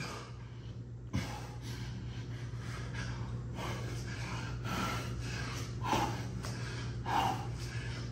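A man breathing hard after a set of exercise, with repeated heavy breaths and a couple of short grunts about six and seven seconds in. A steady low hum runs underneath.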